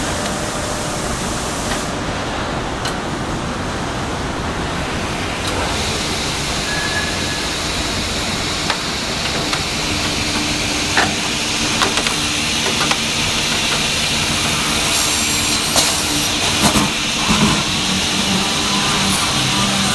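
Comec FIS2 wood milling machine running with a steady, loud noise. A steadier machine hum joins about halfway through. A few short knocks and clicks come in the second half.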